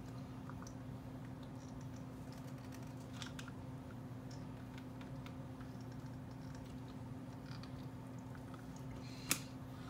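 Faint scattered clicks and taps of small plastic doll shoes and limbs being handled, with one sharper click near the end, over a steady low hum.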